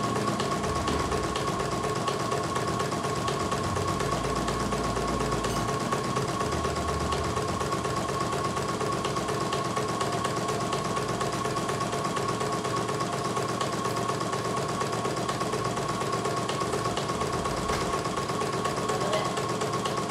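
CNY E900 portable embroidery machine stitching a design: the needle runs at a fast, even rhythm over a steady whine from the machine.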